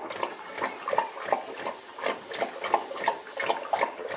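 Bullmastiff lapping water from a stainless steel bowl, a steady rhythm of wet laps at about three a second.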